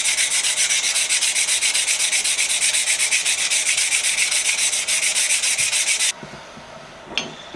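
Sandpaper rubbed back and forth over a wooden screwdriver handle in quick, even strokes, several a second. The sanding stops abruptly about six seconds in, followed by a couple of light clicks near the end.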